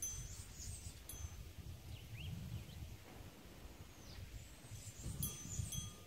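Wind chimes ringing with a few light, high strikes about a second in and again near the end, over a low wind rumble on the microphone. A few faint rising chirps come in the middle.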